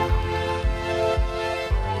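Background music: sustained synth-like chords over a steady low beat, the chord changing near the end.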